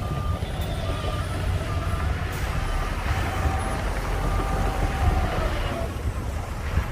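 A heavy machine's reversing alarm gives a row of short, evenly spaced beeps at one pitch, over the low rumble of heavy diesel engines working.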